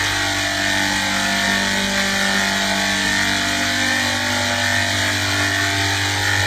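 A steady mechanical drone: several constant tones over an even hiss, unchanging in pitch and loudness.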